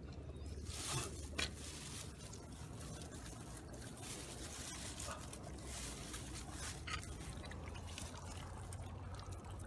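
Shallow paddy-field water sloshing and trickling as hands work through it, with a few sharper splashes, the loudest about a second in.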